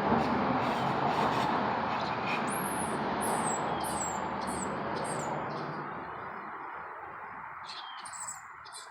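A small bird chirping, short high notes that fall in pitch, about two a second, over a rushing background noise that fades away in the second half.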